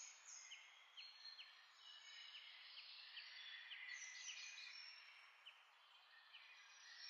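Faint bird chirping, many short high calls, over a soft hiss.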